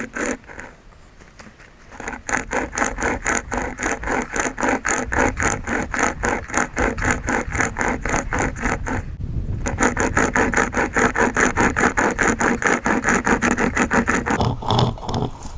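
Hand-pulled pocket chainsaw chain rasping through green wood in long back-and-forth pulls. The rasping pauses briefly about a second in and again around nine seconds, then stops near the end.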